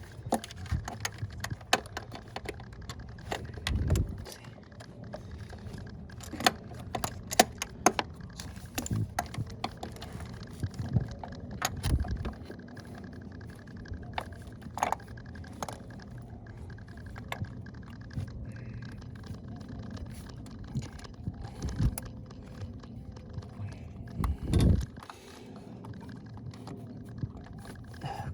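Ratchet and 10 mm socket clicking and clinking against metal in a cramped engine bay, in irregular bursts with a few dull knocks, as a stubborn ignition coil bolt is worked loose by hand.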